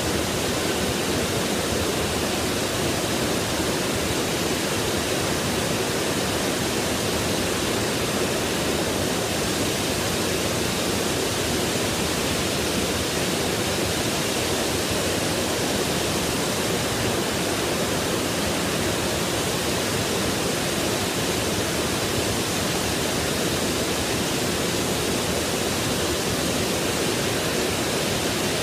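Water cascading steadily from spa neck-shower spouts and splashing into a bubbling whirlpool pool, a constant rush of falling water.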